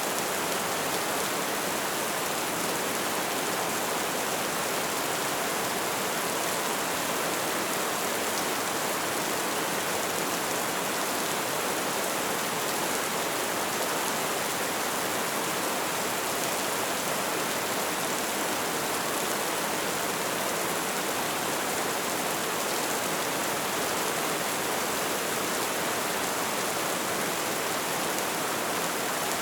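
Light rain falling, a steady, even hiss of many small drops with no distinct patter or breaks.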